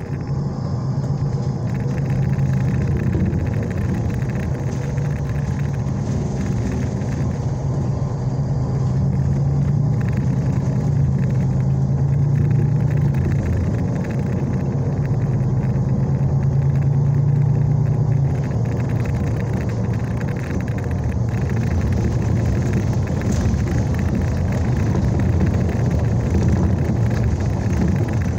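MAN NG323 Lion's City articulated city bus heard from inside the cabin. The diesel engine and drivetrain drone steadily as the bus pulls away in the first couple of seconds and drives on, the pitch wavering a little with speed.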